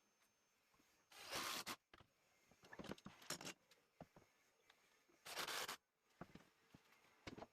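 Two short rasping, rustling strokes about four seconds apart, with scattered light clicks and knocks of handling between them.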